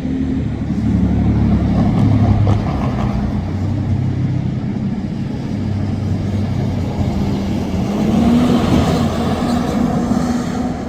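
Diesel freight train passing close by: the locomotive's engine runs steadily over the general noise of the moving train, its pitch rising a little about eight seconds in.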